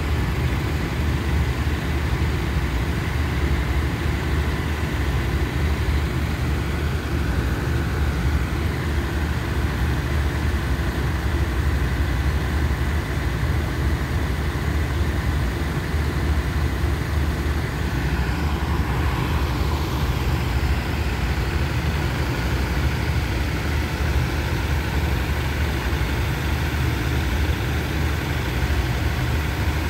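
Diesel railcar train standing at the platform with its engines idling, a steady low hum.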